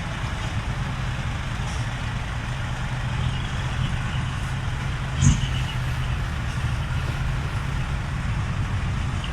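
Large diesel truck engine idling steadily, with one brief knock about five seconds in.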